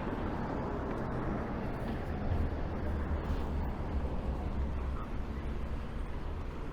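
Steady low rumble of street traffic, a little louder from about two seconds in.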